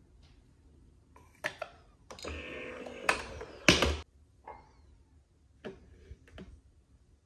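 Handling at a countertop Nespresso machine: aluminium coffee capsules clicking against each other and a ceramic mug knocking on a stone counter. A run of separate clicks and knocks with a short scraping rustle, the loudest knocks about three to four seconds in.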